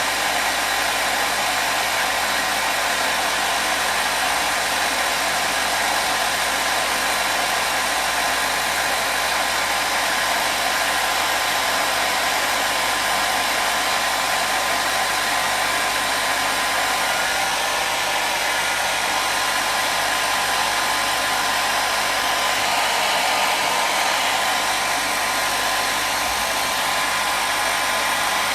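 Hair dryer running continuously, a steady whooshing rush of air with a faint constant whine, used as white noise to calm a baby.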